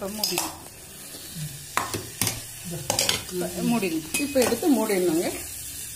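A steel spoon clinks several times against a small steel cup as butter is dropped onto a hot lump of charcoal, which sizzles with a faint hiss. Near the middle comes a louder, wavering pitched sound, like a voice in the background.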